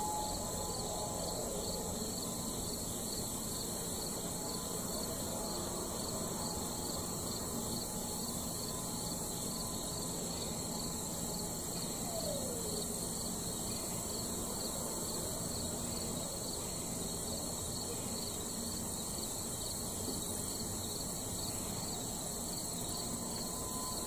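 Distant outdoor tornado warning sirens sounding during a test, faint, over a steady high-pitched drone of insects. A siren tone falls in pitch about a second in, another glides down about halfway through, and a siren tone comes up again near the end.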